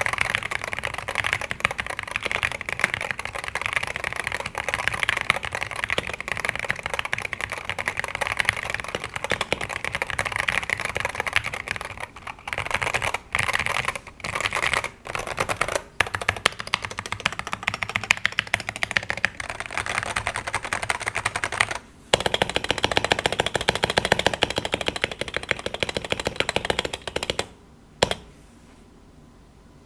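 Rapid typing on a Wooting 60HE keyboard with Gateron Lekker magnetic linear switches and stock PBT keycaps, in a tray-mount Tofu 60 Redux case dampened with foam, tape and O-ring mods. The keystrokes run densely with a few short pauses about halfway through. After a brief stop the typing returns with a deeper tone, and it ends with a single keystroke a couple of seconds before the end.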